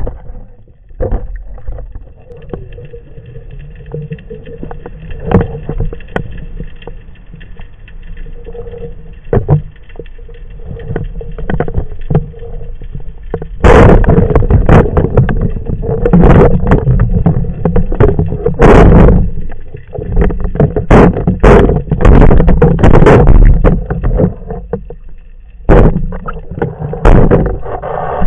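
Underwater sound through the waterproof housing of a camera mounted on a speargun: muffled water noise with handling knocks and a faint steady hum. From about halfway through, loud rushing surges and sharp knocks come repeatedly as the diver moves.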